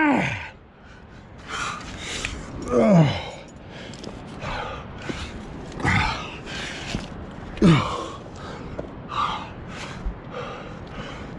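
A climber breathing hard under effort, a loud breath about every second, with short grunts that fall in pitch just at the start, about three seconds in and again near eight seconds.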